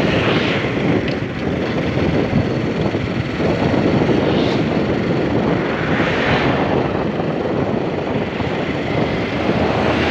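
Motorcycle in motion on an open road: a steady rush of wind on the microphone blended with engine and tyre noise.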